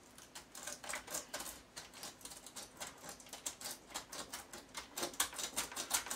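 Rapid, irregular clicking and scraping from small hand work, about five or six sharp clicks a second, growing stronger near the end.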